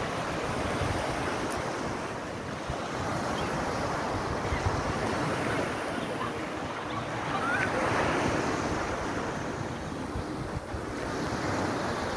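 Sea waves washing onto the shore, with wind buffeting the microphone.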